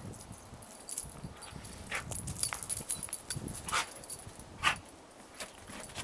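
Dog playing in snow: irregular crunching and scuffling, with a few short, louder bursts.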